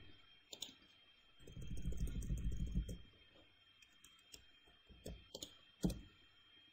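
A few sparse clicks of a computer keyboard and mouse: short sharp ticks about half a second in and a cluster of three between five and six seconds in. A low muffled rumble sounds from about one and a half to three seconds in.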